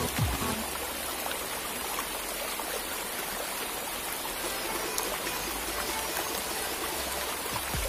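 Flowing stream water, a steady rushing and trickling.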